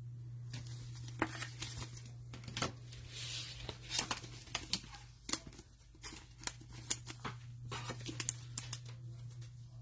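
Cellophane trading-card pack wrappers crinkling and tearing open, with quick sharp clicks and snaps as the cards are handled, over a steady low hum.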